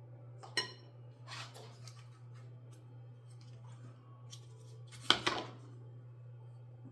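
A few sharp clicks and knocks of kitchen utensils being handled on a countertop, with a short scraping patch early on and the loudest knock about five seconds in, over a steady low hum.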